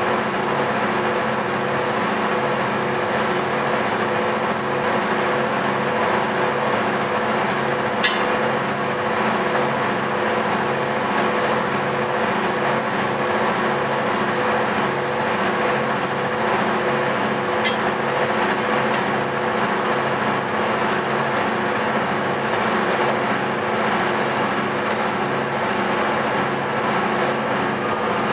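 Steady machine hum made of many even tones that hold the same pitch throughout, with a single sharp click about eight seconds in.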